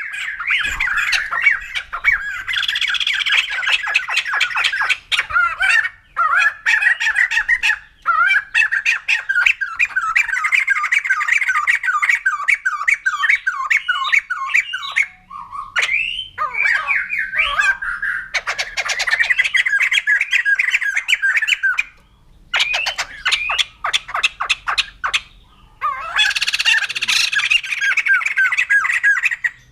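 White-crested laughingthrush calling: loud runs of rapid, repeated chattering notes in bursts of a few seconds, broken by short pauses.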